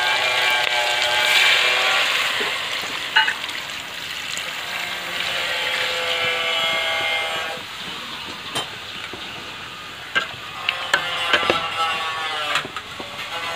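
Fish frying in a metal pot, hissing, with water poured into the hot pot about halfway through. A steady whistle-like tone sounds over the first half, and sharp clicks come in the later part.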